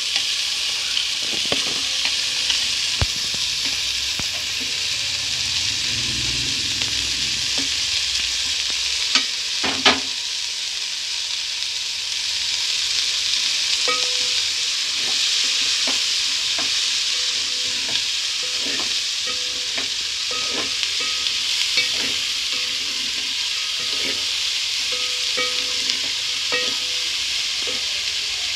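Chopped vegetables sizzling in butter in a metal pot as a wooden spatula stirs them, scraping and knocking against the pot at intervals; the sharpest knock comes about ten seconds in.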